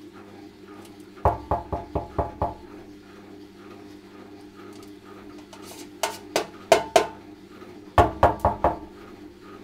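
African grey parrot bathing in shallow water in a stainless steel sink: three short bursts of quick, sharp splashes and knocks against the metal, about a second in, around six seconds and around eight seconds.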